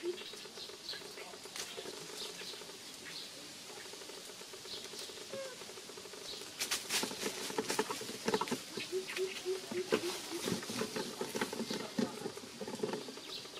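Dry fallen leaves crackling and rustling in quick, irregular clicks, busiest in the second half. A short row of repeated low notes is heard about two-thirds of the way in.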